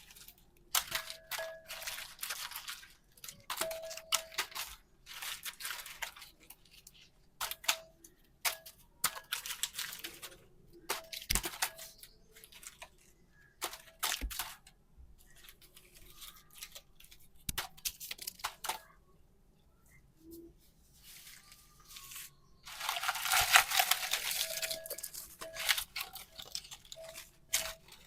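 Packs of super clay being unwrapped and handled: irregular crinkling, tearing and crunching rustles in short bursts, with a longer, louder stretch near the end.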